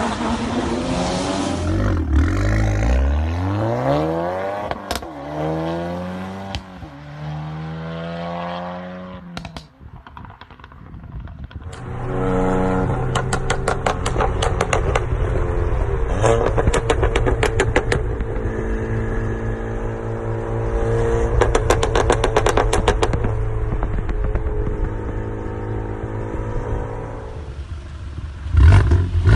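Performance car exhausts. First an engine is revved up and down several times in quick blips. Then another engine runs steadily while rapid exhaust crackles and pops rattle over it for several seconds. Another sharp rev comes near the end.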